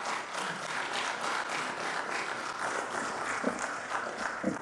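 Audience applauding, many hands clapping steadily in a room, with a voice or two faintly heard near the end.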